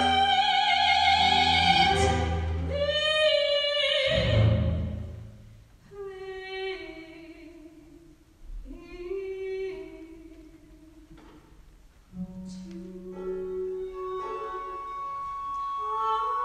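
Soprano singing with a contemporary chamber ensemble. Loud, long high notes with vibrato over low instruments give way about five seconds in to quieter, lower sung phrases. About twelve seconds in, the instruments come back in suddenly with a held low note, and a steady high tone joins them.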